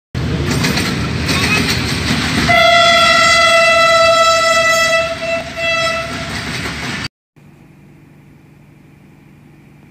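Train running, then its horn sounding one steady note for about four seconds, starting about two and a half seconds in. The sound cuts off suddenly about seven seconds in, leaving only a faint steady hum.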